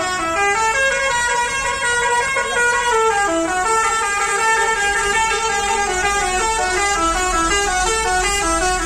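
A decorated tourist bus's musical horn playing a fast tune of short stepped notes without a break, over a low rumble.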